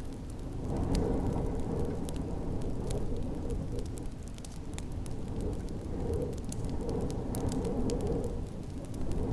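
Wood fire crackling with frequent sharp pops over a steady low rush of storm wind that swells and eases every few seconds.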